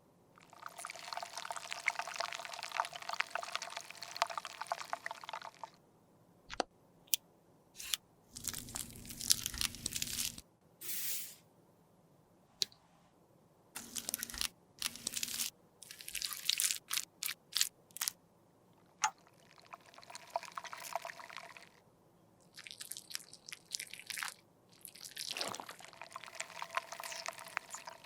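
Close-up handling of makeup products by hand: long stretches of scraping and crunching, as of product being crushed or mixed, broken up by sharp clicks and taps of tools and containers.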